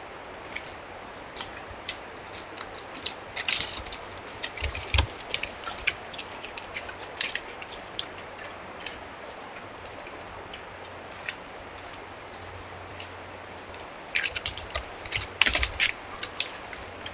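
Black bear's claws clicking and scraping on cottonwood bark and limb as it climbs the trunk and comes back down, in irregular clusters that are busiest about three to four seconds in and again near the end, over a steady hiss.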